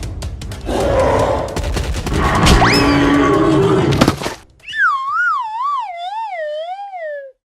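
Busy cartoon background music and sound effects, then a single wavering tone that wobbles up and down while sliding steadily downward for about three seconds, a comic descending 'fail' sound effect, which cuts off suddenly.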